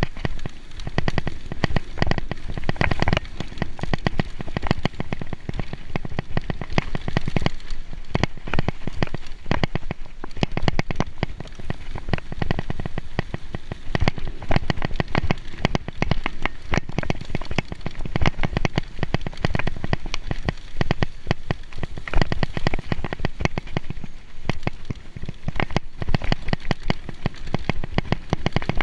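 Mountain bike descending a wet dirt trail: a continuous dense rattle and crackle of the bike and its tyres over the rough ground.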